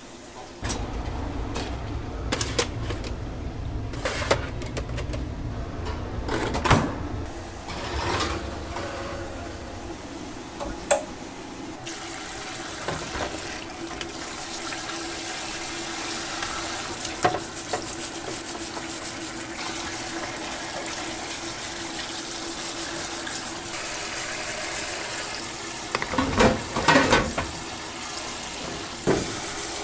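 Water from a kitchen tap running and splashing into a stainless-steel sink as a lobster is scrubbed under it with a brush. Scattered knocks of shell on steel sound throughout, with a burst of louder clattering near the end.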